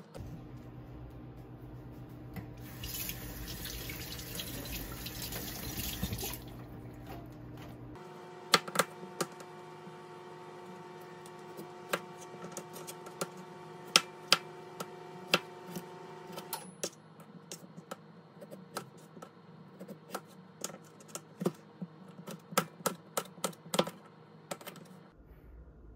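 A kitchen knife chopping cucumber on a plastic cutting board: sharp, irregular knocks of the blade hitting the board, in quick runs. A few seconds in, about four seconds of hissing noise sits under the cutting.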